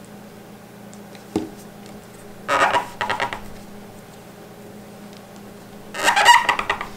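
Gauze pad wetted with neutralizer being handled and wiped across an aluminium beam: a single light knock, then two short scratchy bursts of rubbing, about two and a half and six seconds in, the second a wipe along the metal surface while cleaning it for bonding. A steady low hum runs underneath.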